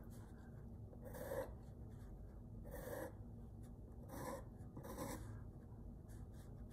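Pencil drawing on paper: a series of short, faint strokes, about one every second.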